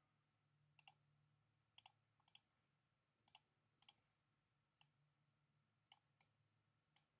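Faint computer mouse clicks, about nine spread unevenly, several coming as quick pairs, as line segments are drawn between points on screen.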